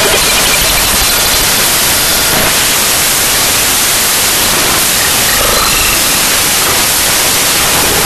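Loud, steady hiss of static, like white noise, spread evenly from low to high pitch.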